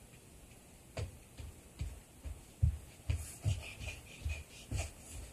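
A small child's feet thudding on the floor while dancing and jumping: an uneven run of dull thumps, a few a second, starting about a second in.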